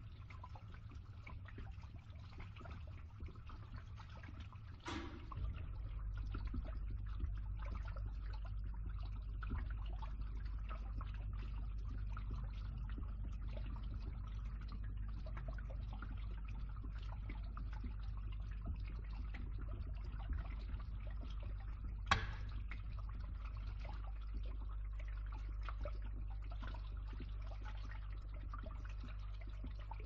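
Water draining and trickling through a pipe over a pump's steady low hum. The hum grows louder about five seconds in. A sharp click comes there and again about twenty-two seconds in.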